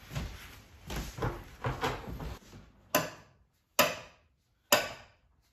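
Handling and rubbing noises, then three sharp hammer blows just under a second apart: an orange soft-faced hammer striking a wrench to break loose a nut at the end of a Bridgeport mill table.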